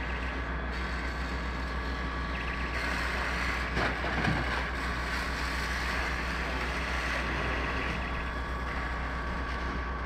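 Fire engine running its pump steadily to feed the hose lines, a constant engine hum and rush of noise. About four seconds in there is a short, louder noise.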